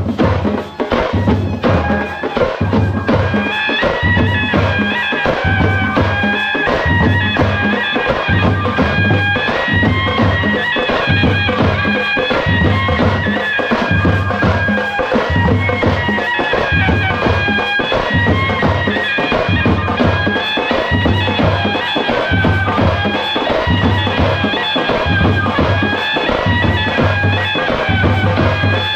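Live folk procession music: a shrill double-reed pipe of the shehnai type playing a wavering melody over a steady drum beat. The pipe comes in about two seconds in.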